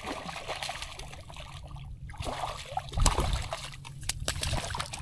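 Small hooked speckled trout splashing and thrashing at the water's surface as it is brought in, with a louder burst of splashing about three seconds in and a few more sharp splashes a second later.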